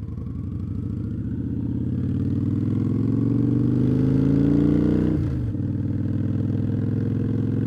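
Motorcycle V-twin engine accelerating, its pitch climbing steadily through one gear, then dropping sharply at an upshift about five seconds in and running on steadily.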